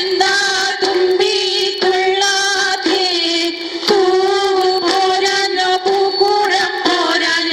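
Female voice singing a thumbi thullal folk song in short phrases of long held notes.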